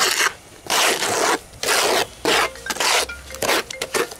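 A steel hand trowel scraping and stirring Rapid Set Cement All repair mortar, freshly wetted, in a plastic mortar tub. The rough scraping strokes come about six times in four seconds.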